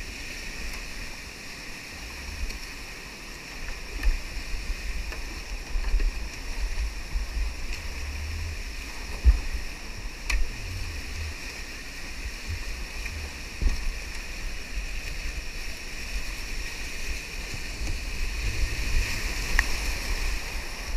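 Whitewater rapids rushing steadily around a kayak, heard close up from the boat, with a few sharp knocks and thumps from the paddle and water striking the boat.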